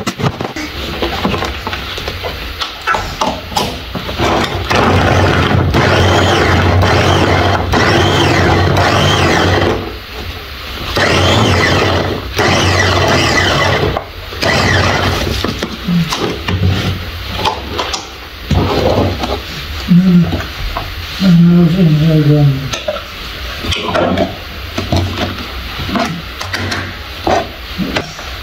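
Small electric food chopper running in pulses as its blades chop red onions in a glass bowl: one long run of about nine seconds, then another of about three. After that come irregular clinks and knocks as the bowl and blade are handled.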